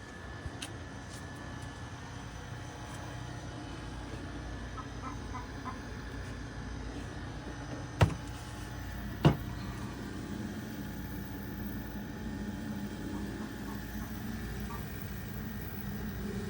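Steady low rumble like a vehicle engine running, with two sharp knocks about a second and a half apart near the middle.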